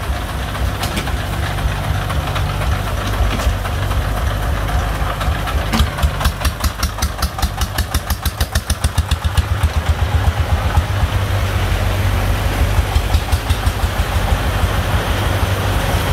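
Single-cylinder diesel engine of a soil-loaded công nông farm truck chugging. From about six to ten seconds in it is opened up into a loud, even knocking beat as the truck pulls away under load, smoking, then runs on steadily.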